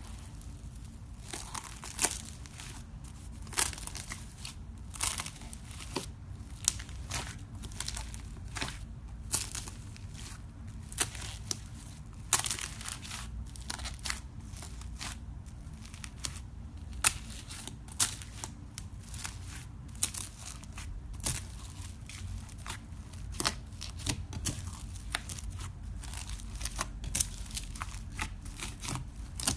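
Slime being squeezed and stretched by hand, giving off irregular sharp pops and crackles, a few a second, over a low steady hum.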